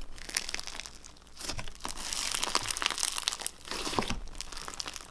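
Clear, honey-coloured jelly cube slime being squeezed and pressed by hand. It gives a dense run of small crackles, pops and crunches as the trapped air bubbles and sponge jelly cubes are squashed.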